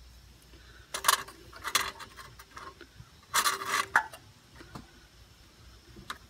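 Hands handling a plastic wiring connector and its wires on a mower's engine: a few short clicks and rattles about one second in and near two seconds, and a longer rattle about three and a half seconds in.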